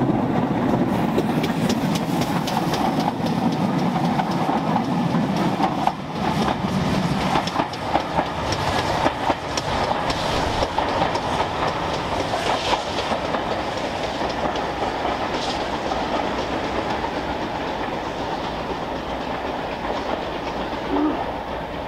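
Steam-hauled passenger train running past close by and pulling away: coach wheels clattering over the rail joints, loudest in the first several seconds and fading as it recedes.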